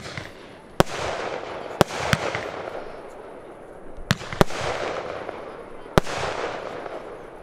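Aerial firework shells going off in quick succession: about seven sharp bangs at uneven intervals, each followed by a hissing crackle that fades over a second or so.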